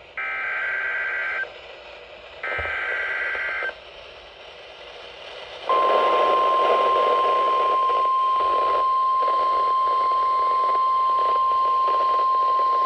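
Emergency Alert System warning over weather radio: two harsh digital SAME header bursts, each a little over a second long and a second apart, then hiss, then about six seconds in the steady single-pitch NOAA Weather Radio warning alarm tone (1050 Hz) begins and holds, with radio static under it.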